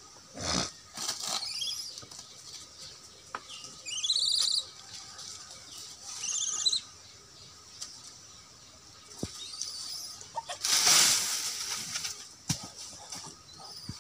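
Monkeys fighting: short, high-pitched squealing screams come a few times, and a loud rustling scuffle breaks out about eleven seconds in.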